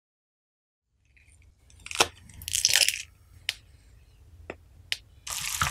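Slime being squeezed through a plastic garlic press, crunching and crackling with a few sharp clicks, then a dense run of crackling near the end.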